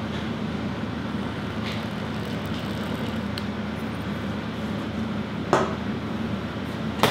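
Steady hum of kitchen machinery, with two short sharp knocks, one about five and a half seconds in and one at the end.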